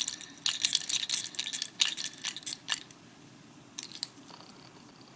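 Small plastic Kinder Joy press-and-spin toy clicking and rattling in short bursts as it is pressed and its wheel spins. Most of the clicking comes in the first three seconds, with a couple more bursts a little later.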